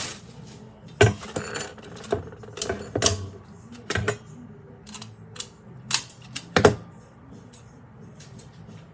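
Metal can-rack frame pieces being handled and set down: irregular sharp clinks and clacks, about a dozen, the loudest about a second in and about two-thirds of the way through.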